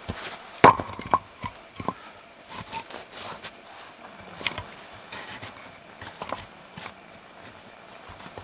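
Scattered knocks and clinks of objects being handled. The loudest is a sharp clink less than a second in, which rings briefly, and a few lighter clinks follow.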